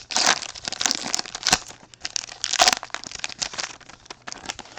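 Wrapper of a 2023 Topps Chrome baseball card pack being torn open and crinkled by hand: a quick, irregular run of crackles that is loudest about a quarter second in and again near the middle, and thins out near the end.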